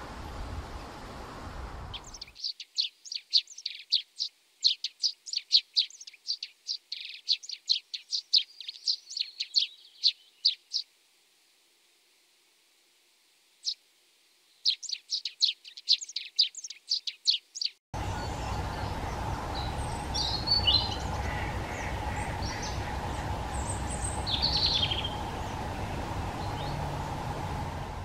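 Eurasian tree sparrow chirping: a quick run of short high chirps that stops for a few seconds and then starts again. About two-thirds of the way in this gives way to wind on the microphone, with a few faint bird notes.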